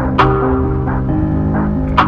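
Background music: plucked string notes over a low bass line, with a sharp percussive hit near the start.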